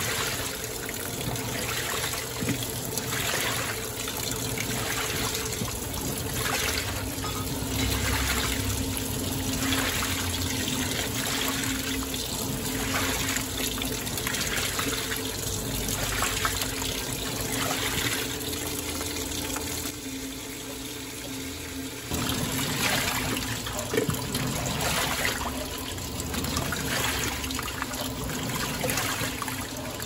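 Panasonic top-load washer filling and churning a load of whites: water pours into the drum while the pulsator swirls the clothes, giving a rhythmic swishing about once a second over a faint steady hum. About twenty seconds in it quiets briefly, then the rinse agitation starts up again.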